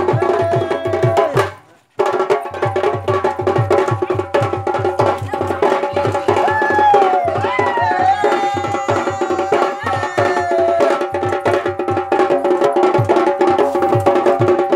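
Folk music: a barrel drum beating a fast, steady rhythm under a melody that slides up and down in pitch. The sound drops out briefly about two seconds in, then goes on.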